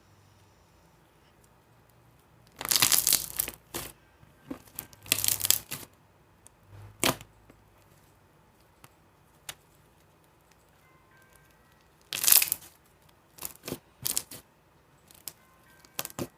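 Sticky slime being squished and pulled apart by hand, in about six short noisy bursts with pauses between them.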